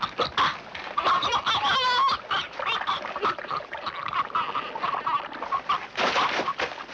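Horror film soundtrack: a woman screaming and crying out in broken, choking bursts as a zombie bites into her throat. The loudest outburst comes about six seconds in.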